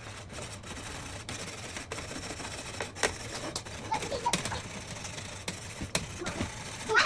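Scattered light clicks and knocks of objects being handled, a few sharper ones spaced over several seconds, over a steady low background hum.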